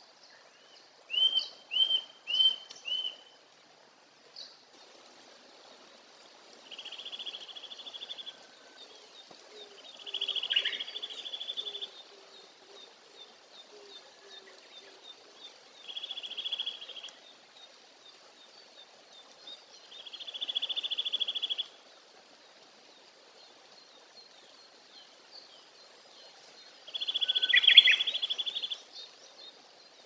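Eurasian nuthatch singing: four loud, quick whistled notes about a second in, then a run of rapid trilled phrases, each one to two seconds long, repeated every few seconds. Other birds chirp faintly and high throughout.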